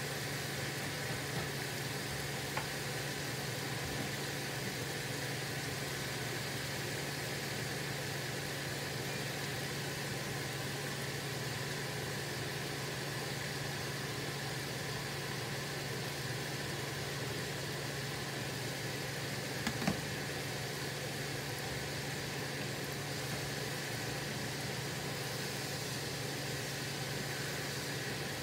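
Chicken gizzards deep-frying in a pot of hot oil: a steady sizzling hiss over a constant low hum, with a brief knock about twenty seconds in.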